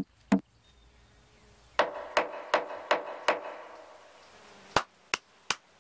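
Rhythmic knocking on wood in a woodpecker's pecking game: two quick knocks, then a run of five ringing knocks about a third of a second apart, then three sharp taps near the end.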